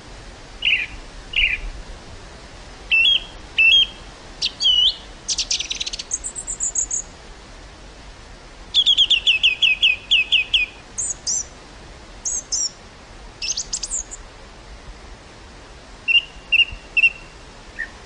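Several songbirds calling and singing in short phrases over a steady hiss of wind, with a fast run of falling notes about halfway through.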